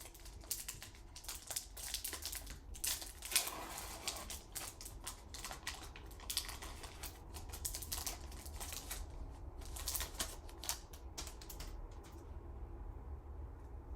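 Foil Pokémon booster pack wrapper crinkling and tearing as it is opened, a run of sharp crackles and clicks that thin out near the end.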